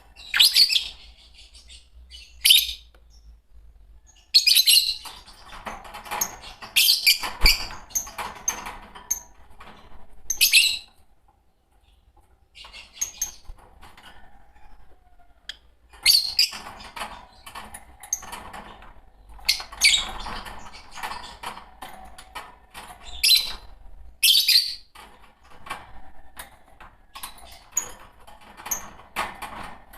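A pair of Fischer's lovebirds chirping and chattering: sharp, shrill chirps come in repeated bursts over a softer running chatter. The calling drops to a few faint chirps for several seconds a little before halfway through.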